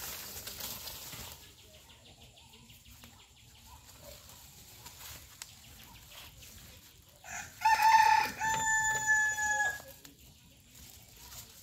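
A rooster crows once, about seven seconds in: a long call that starts briefly and is then held on one pitch for over a second before cutting off. A short rustle of dry leaves comes at the start.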